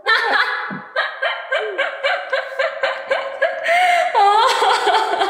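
Hard laughing: quick repeated laugh pulses, about four a second, then breaking into longer high laughing cries near the end.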